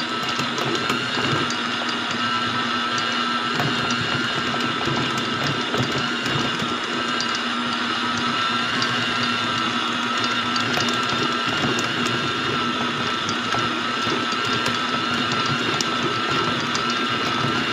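Electric stand mixer running steadily with its dough hook kneading bread dough in a steel bowl: an even motor whine and hum with faint ticks.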